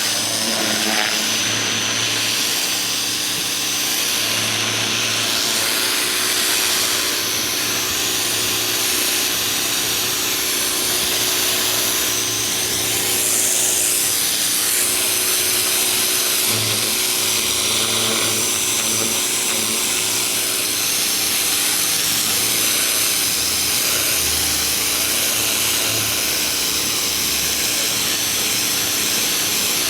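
Ryobi 2000 PSI electric pressure washer running, its high-pressure water jet spraying with a loud, steady hiss and a steady high whine.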